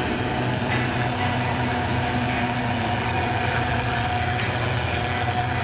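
Thermal fogging machine running with a steady, unchanging engine drone as it puts out insecticide fog.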